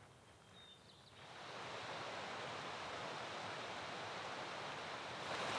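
Creek water rushing steadily, coming in about a second in after a near-silent start.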